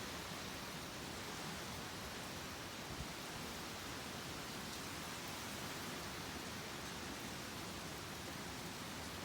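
Steady, even rushing noise of wind and rain in the countryside as a typhoon approaches.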